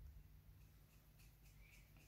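Near silence: faint room tone, with a few faint light clicks about halfway through.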